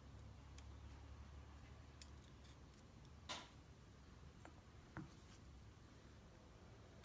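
Faint, scattered small metal clicks of tweezers and lock-cylinder parts being handled while a pin-tumbler lock is put back together, a handful spread over several seconds, one near the middle a little longer and scratchier.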